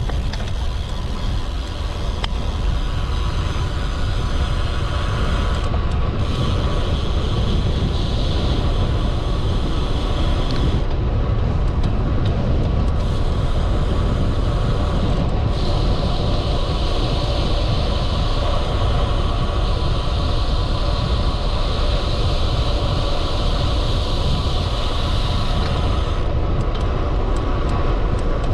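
Wind buffeting the microphone of a camera on a moving road bike: a steady, loud low rumble with road and tyre hiss above it.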